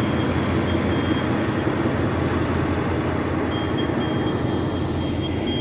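TCDD DE 24000-class diesel-electric locomotive's engine running steadily as it moves slowly. A high-pitched electronic beeping sounds over it, stops about a second in, and comes back a little after the middle.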